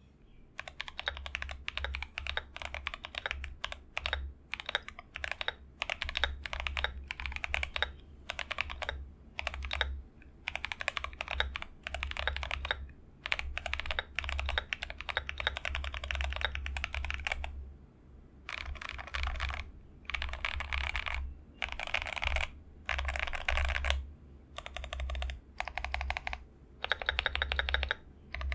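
Mechanical keyboard being typed on: lubed Boba U4T tactile switches on a steel plate with Akko Black & Bronze keycaps, in a foam-modded case with Holee-modded stabilisers. Fast runs of key presses come in bursts with short pauses, turning into shorter separate runs in the second half.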